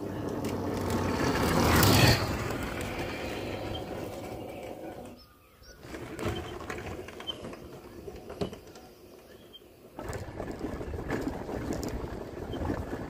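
Motor scooter engine getting louder as it approaches and passes close by about two seconds in, then fading away. After a quieter stretch with a few sharp clicks, the scooter's engine is heard running again near the end.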